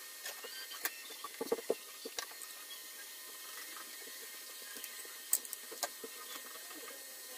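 Soldering iron working solder joints on a circuit board: faint crackling of heated solder and flux, with scattered small clicks and one sharper click a little past halfway.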